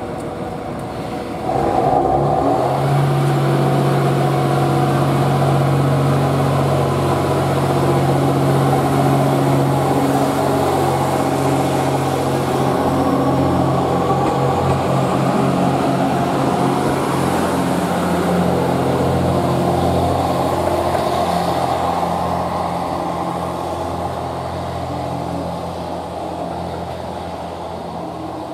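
GV-E400 series diesel-electric railcar's diesel engine throttling up suddenly about a second and a half in as the train pulls away from the platform. It then holds a steady, loud drone as the railcar passes close by, and fades gradually near the end as it draws away.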